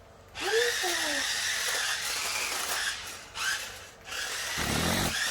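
Small electric motors of a remote-control stunt car whining as it drives, in two runs: from about half a second in to about three seconds, then again from about four seconds in.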